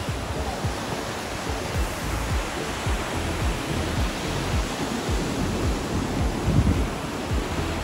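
Ocean surf breaking and washing up the beach: a steady rush of whitewater.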